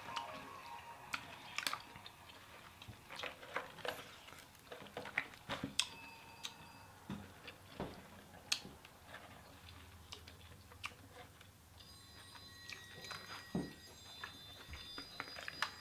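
Eating boiled seafood: irregular clicks and cracks of lobster shell being handled and broken, with chewing. Faint held high tones come in near the end.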